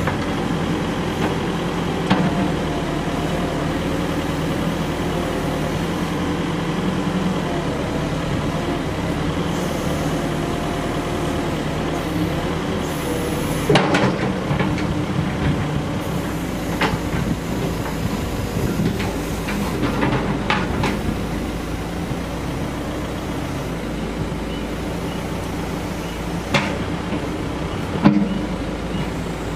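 Volvo BL70 backhoe loader's diesel engine running steadily, with several sharp knocks and clanks from the working machine.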